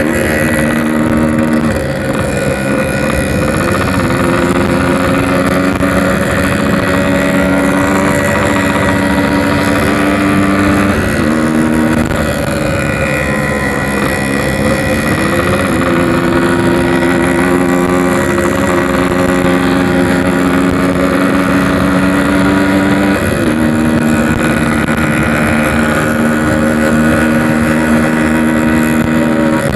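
Yamaha RX-King 135cc two-stroke single-cylinder engine, fitted with a 'packing power' aftermarket exhaust, running under way. The engine note holds steady, then breaks off and settles back about four times, as at gear changes.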